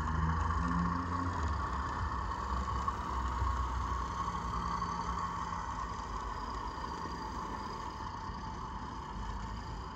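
Train Tech SFX20 sound chip inside a Lima OO gauge Class 50 diesel model, playing its diesel engine sound through a tiny speaker as the locomotive runs along the track. The sound is steady and slowly gets quieter.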